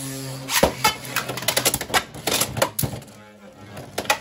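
Beyblade X spinning tops clashing and clattering against each other and the plastic stadium: a fast run of sharp plastic clicks, with a steady low hum in the first second.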